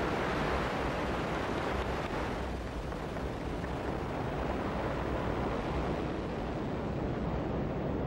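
Ariane 5 rocket lifting off: a steady roar from its main engine and solid boosters.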